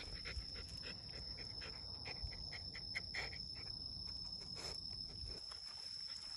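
A Shiba Inu sniffing hard at rain-damp ground, quick short sniffs several a second, which stop about five seconds in. A steady high-pitched insect trill runs behind it.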